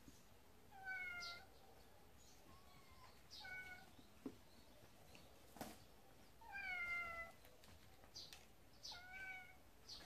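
Cat meowing: four short, high mews, each dropping slightly in pitch, with a couple of faint knocks between them.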